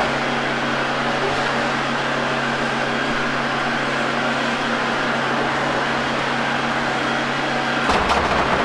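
Airport restroom ambience: a steady mechanical whir with a constant low hum. A few knocks and a rumble come near the end.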